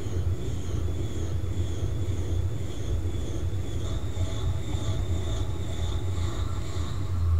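Dishwasher running, heard from inside the tub: a steady low hum from the circulation pump, with a faint high whine that wavers.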